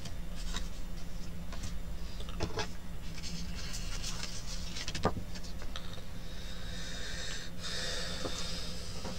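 Card stock being handled on a paper trimmer: light paper rustles and a couple of small taps, and a sliding scrape as the trimmer blade runs through the card. A steady low hum lies under it.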